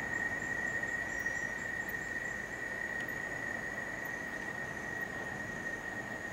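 Rainforest at dawn: a steady, high-pitched insect drone on one unbroken tone, with faint quick chirps above it, over a low, grainy roar of distant mantled howler monkeys calling.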